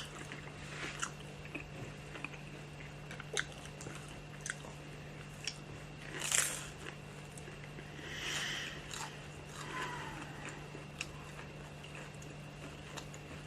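Mouth sounds of someone eating lumpia: chewing and biting, with scattered crunches and a louder crunch about six seconds in. A faint steady hum runs underneath.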